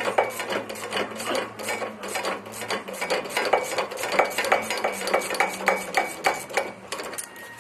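Ratchet wrench clicking rapidly in quick metallic ticks, about four or five a second, while undoing the bolts that hold the shock absorber to the steering knuckle.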